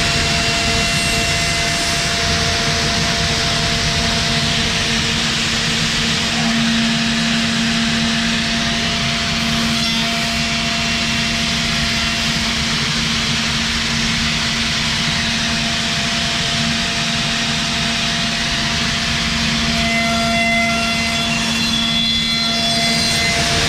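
CNC router spindle turning a HeliCut / WhisperCut combination cutter at speed and milling the edge of a veneered chipboard panel: a continuous loud machining noise with a steady whine held under it.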